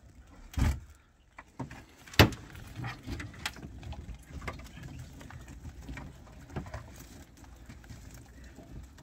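Crab pot knocking and rattling against the side of an aluminium dinghy as it is handled, with two sharp knocks in the first few seconds, the second the loudest, then lighter clicks and taps.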